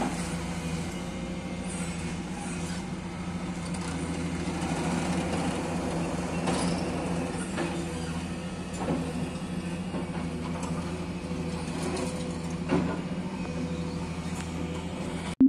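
Demolition excavator's diesel engine running steadily, with a few faint knocks of rubble being moved.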